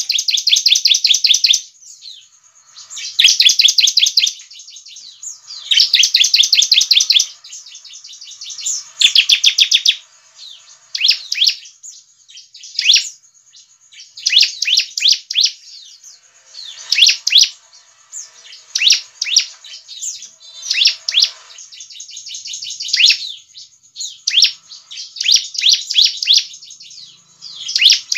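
Bar-winged prinia (ciblek) calling: high, rapid chattering trills about a second or more long, repeated every couple of seconds. After about ten seconds they give way to shorter, sharp phrases that come more often.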